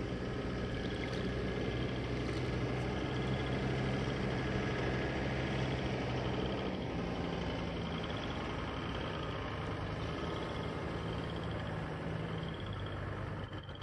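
Farm tractor engine running steadily, its note dropping a little about seven seconds in and again near the end. Frogs give short high trills about once a second.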